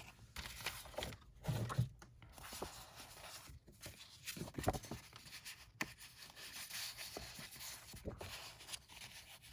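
Sheets of craft paper rustling and sliding as they are handled and flipped through, with scattered soft taps and knocks.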